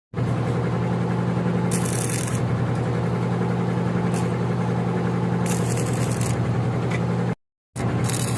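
Electric arc welding machine humming steadily, with several short stretches of high hissing crackle from the arc. The sound cuts out briefly about seven seconds in.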